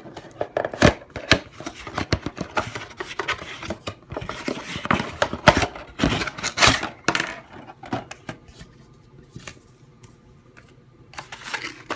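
A plastic toy and its cardboard-and-plastic box being handled while it is unpacked: irregular clicks, knocks and rustles, dying down for the last few seconds.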